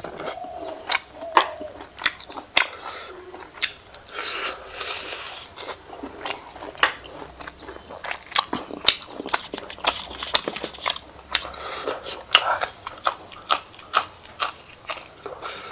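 Close-up mouth sounds of a person eating pork fry and rice by hand: chewing with many sharp, wet lip smacks and clicks, which come more thickly in the second half.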